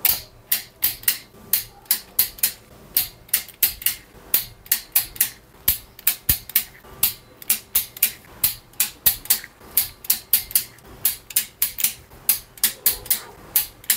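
Torque wrench ratcheting as crankcase bolts are tightened to about 9 newton-metres: a long run of sharp metallic clicks, about three a second, in uneven groups.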